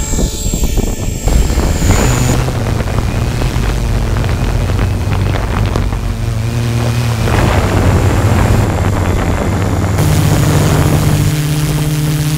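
Multirotor drone's electric motors and propellers, with the RC helicopter's rotor, running at close range to the drone's onboard camera. A steady low hum steps in pitch a few times as the throttle changes, over rough wind buffeting on the microphone.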